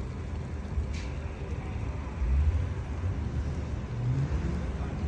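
Motor vehicle running, a steady low rumble with the engine pitch rising briefly about three to four seconds in.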